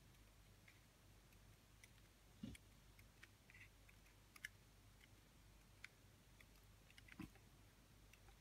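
Near silence with faint, irregular ticks of a felt-tip marker's tip dabbing dots onto paper, and two slightly louder soft knocks, one about two and a half seconds in and one about seven seconds in.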